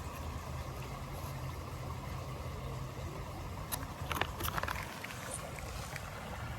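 Steady low rumble of outdoor creek water, with a few short clicks about four seconds in.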